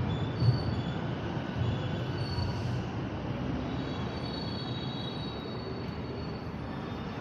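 A passing train with its wheels squealing: thin high-pitched tones that come and go over a steady low rumble. A sharp knock sounds about half a second in.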